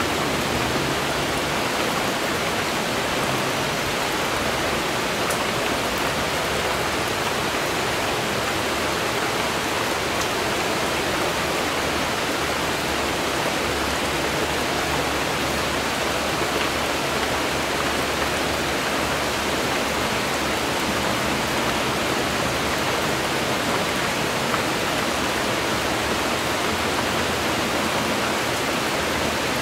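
Steady rain falling, an even unbroken hiss with no single drops standing out.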